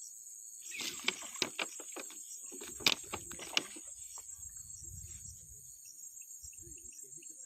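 Crickets or similar insects chirring steadily and high-pitched. From about a second in, a close run of sharp clicks and knocks lasts for about three seconds, followed by a brief low rumble.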